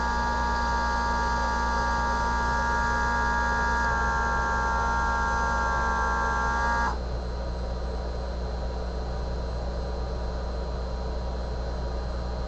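Vytran LDC-400 fiber cleaver's vacuum pump running with a steady whine over a low hum, cutting off abruptly about seven seconds in; a low steady hum continues after it stops.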